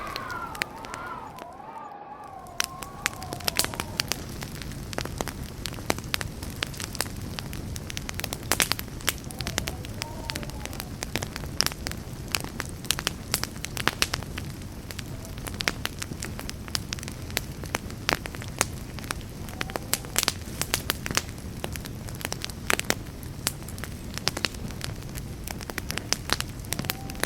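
Campfire burning, with frequent sharp crackles and pops over a steady low rush of flame. A faint wavering whistle sounds in the first few seconds.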